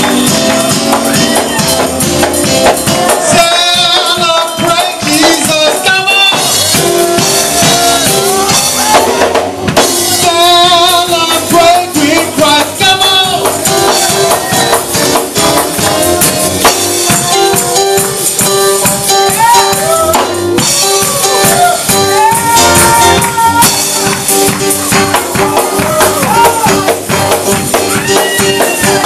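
Church praise-break music: fast, driving percussion with tambourines and drums under held chords, with voices singing and calling out without clear words.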